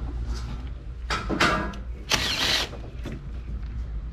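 Hand ratchet working a 10 mm bolt in the engine bay, in two short bursts of ratcheting about one and two seconds in, over a steady low hum.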